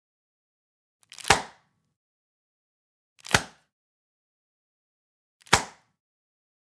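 Plastic popping like a balloon: three sharp single pops, about two seconds apart.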